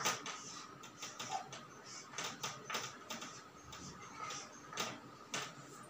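Chalk writing on a blackboard: irregular taps and short scratches as letters are formed, with the sharpest tap right at the start.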